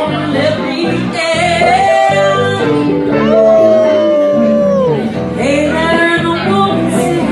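Live blues band: a woman singing into a microphone over electric guitar. She holds one long note a few seconds in and lets it fall away at the end.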